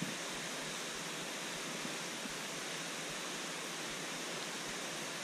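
Small rocky mountain creek flowing, a steady, even rush of water.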